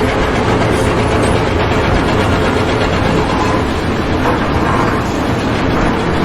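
Loud, steady noise of a vehicle or heavy machine running.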